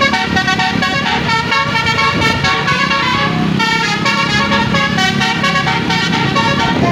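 Bus basuri horn, a multi-note musical air horn of the Indonesian 'telolet' kind, playing a continuous tune, the notes changing every fraction of a second.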